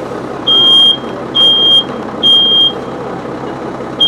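Smoke alarm sounding its temporal-three pattern: three high, steady beeps a little under a second apart, a pause, then the next set starting near the end. It was set off by smoke from a burning wastebasket.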